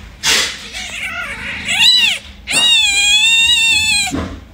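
Newborn kitten, eyes still closed, mewing loudly as it is lifted by hand from its nursing mother: a short rising-and-falling mew about two seconds in, then one long high mew of about a second and a half. A brief rustle of handling comes near the start.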